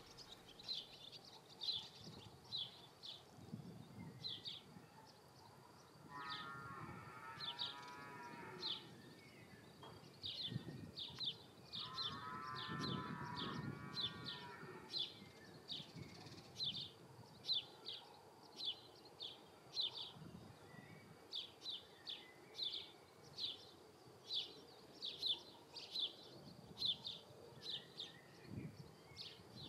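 Cow mooing twice, once about six seconds in and again about twelve seconds in, each call about two seconds long, over a steady run of short high chirps repeating a little faster than once a second.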